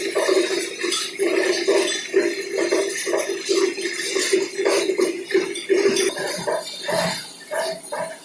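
Sack-shredding machine running, a hum that swells and drops as it works, with a busy clatter of metallic clinks and rattles.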